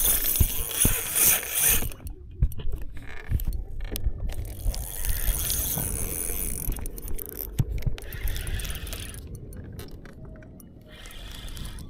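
Spinning reel being cranked close to the microphone in spells with short pauses, its gears and handle whirring and clicking, over a steady low rumble.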